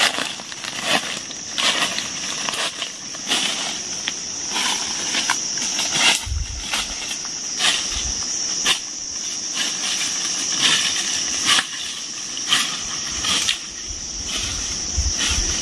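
Footsteps crunching and rustling through dry fallen leaves, a string of irregular crunches, over a steady high-pitched insect drone.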